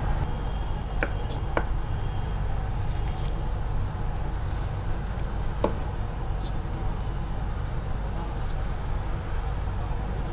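A kitchen knife cutting spring onion: a few sharp taps of the blade on a wooden chopping board and short scraping slices through the green stalks, over a steady low hum.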